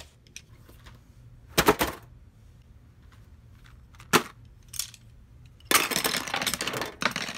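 Art supplies being put down on a table: a few sharp knocks as a spiral sketchbook and a boxed pencil set are laid down, then a rattling clatter of drawing pencils dropped onto the box for the last couple of seconds.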